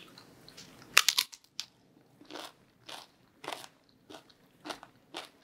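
A crisp tortilla chip bitten with a loud crunch about a second in, then chewed in a run of softer, evenly spaced crunches.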